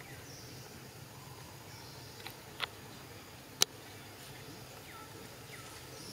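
Quiet forest ambience with faint, short high chirps and a few sharp clicks, the loudest click about three and a half seconds in.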